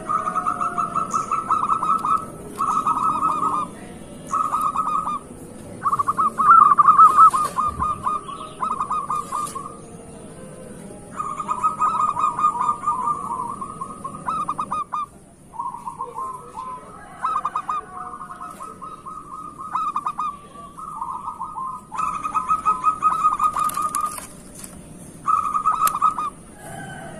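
Zebra dove (perkutut) cooing: about a dozen quick, rapidly pulsed phrases of about a second each, with short pauses between them.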